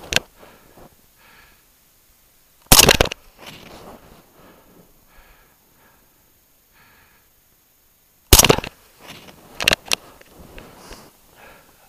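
Two loud rifle shots, about five and a half seconds apart, each with a short echoing tail. Between them come the shooter's soft, heavy breaths, and after the second shot a couple of smaller sharp clicks.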